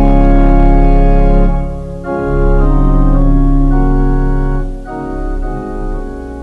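Gospel-style organ playing sustained chords that change a few times, growing quieter toward the end as it fades out.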